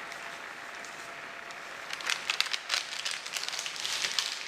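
Plastic spice packet crinkling and rustling as it is handled, with irregular crackling clicks from about two seconds in.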